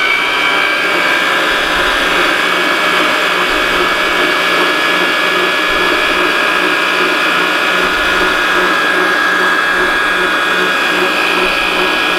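Hamilton Beach stand mixer running steadily at a raised speed, its whisk beating egg into the mixture in a stainless steel bowl: a steady motor whine.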